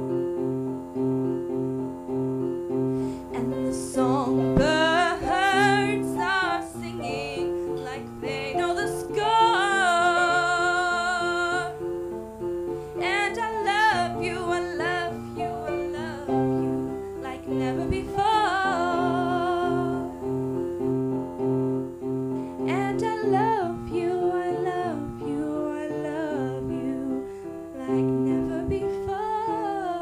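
A woman singing a song in phrases over steady repeated chords that she plays herself on a keyboard or plucked instrument, with instrumental stretches between the sung lines.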